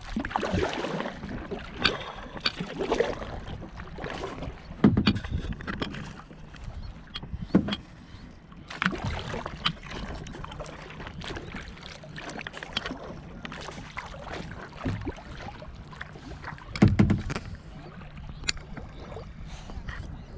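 Kayak paddle strokes splashing and dripping in the river, with water lapping against the plastic hull; irregular splashes, the loudest about five and seventeen seconds in.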